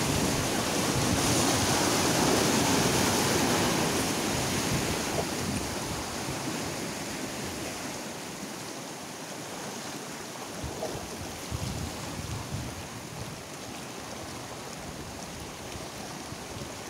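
Wind and sea surf rushing, loudest over the first few seconds and then settling to a lower, steadier level.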